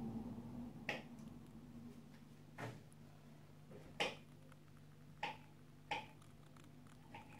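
Scattered sharp clicks and light knocks, five or six over the few seconds, from a pet rat moving about its cage, over a faint steady low hum.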